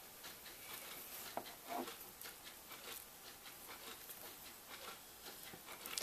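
Faint handling noise of fingers working and pulling knife-cut insulation off the end of a small stranded wire: scattered small clicks and rubs.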